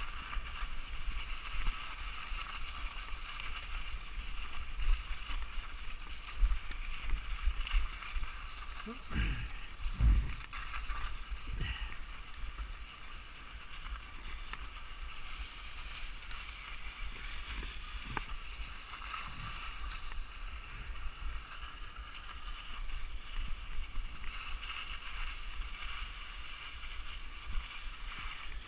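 Mountain bike riding over a rough, frosty dirt trail: steady tyre and frame rattle, with low wind buffeting on the microphone and a few harder bumps, the loudest about ten seconds in.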